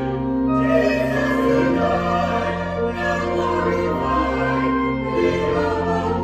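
Choir singing slow sacred music with accompaniment, in long held chords whose bass notes change every second or two.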